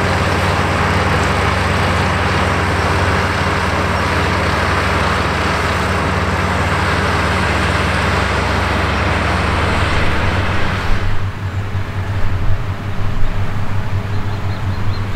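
Fendt Favorit 926 Vario tractors' diesel engines running steadily under load as they pull ROC belt rakes through hay, a constant drone mixed with the hiss of the pickup machinery. About eleven seconds in it changes to an uneven, throbbing engine sound with less hiss.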